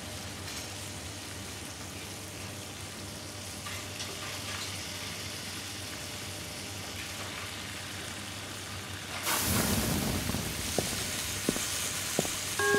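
Food sizzling in a frying pan in a working kitchen. It begins about nine seconds in, after a low steady hiss, and grows to a dense sizzle with a few sharp clicks of utensils.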